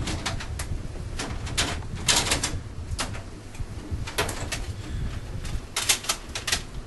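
Plastic DVD cases and discs being handled and rummaged through, giving sharp clicks and clacks in several quick clusters over a steady low rumble.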